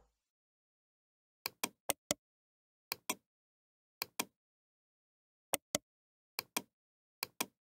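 Computer mouse clicking: seven quick pairs of sharp clicks, spread a second or so apart, with silence between them.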